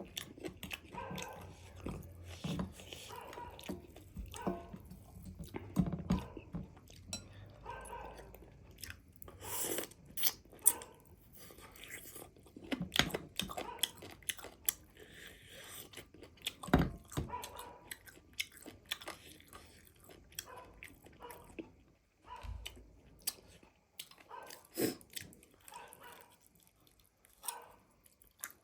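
A person biting into and chewing fried chicken leg pieces, with irregular crunches and wet chewing sounds close to the microphone.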